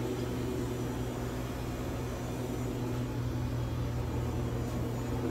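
Steady low hum of a refrigerated drink vending machine's cooling unit running, a constant pitched drone with a hiss over it.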